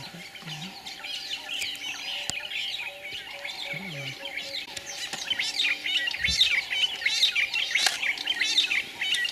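Birds singing and chirping in a dense, overlapping chorus of quick trills and twitters, growing busier in the second half.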